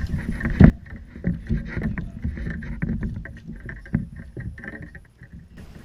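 Kayak on the water: knocks against the hull and water splashing, with one loud knock about a second in and smaller irregular knocks after.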